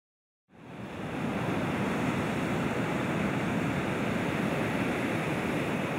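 A steady, even rushing noise with no distinct tone, fading in from silence over the first second or so.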